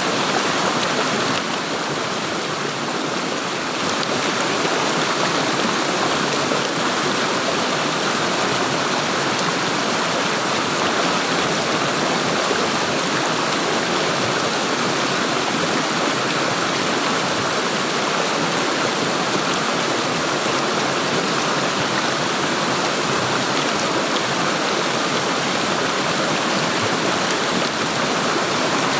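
Flowing water gurgling and rushing steadily, with no let-up.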